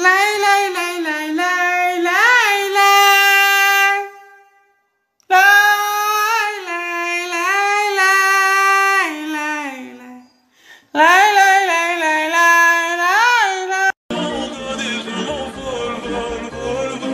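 A single high voice singing a slow, held melody in three phrases with short gaps between them, its pitch swooping up and back down now and then. About fourteen seconds in it cuts to a different music track with bass.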